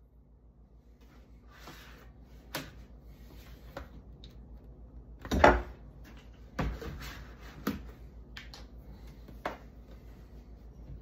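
Kitchen handling noises: a handful of scattered knocks and clunks as things are picked up and set down, the loudest about five and a half seconds in.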